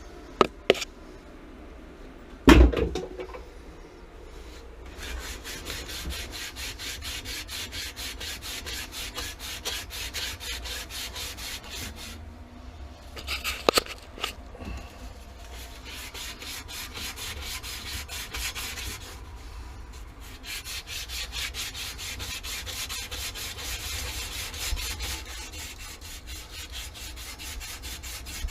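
Copper pipe being scrubbed clean with an abrasive in long runs of fast, even strokes, the usual preparation of a joint for soldering. There is a sharp knock a couple of seconds in and a clatter about halfway through.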